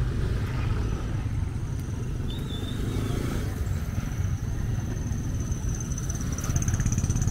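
Street ambience dominated by a steady low rumble of motorcycle and car traffic, with a thin high whine that grows stronger near the end.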